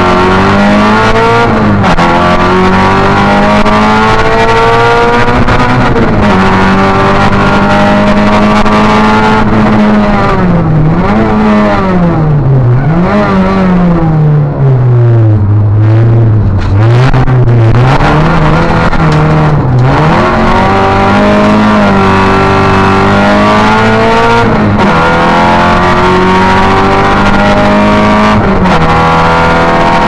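Opel Astra rally car's engine, heard from inside the cockpit, under hard acceleration through the gears. Its pitch climbs and then drops sharply at each upshift. Around the middle the revs fall low and rise and dip several times through downshifts, then they climb again through more upshifts near the end.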